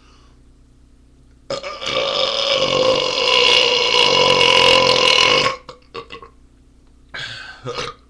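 A man's long, loud burp, about four seconds long, from gulping down a 40-ounce beer fast. A few short bursts follow it.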